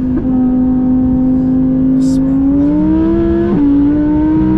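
Twin-turbocharged Audi R8 engine pulling hard under acceleration, heard from inside the cabin. Its pitch holds and then climbs, with a quick dip at a gear change about three and a half seconds in.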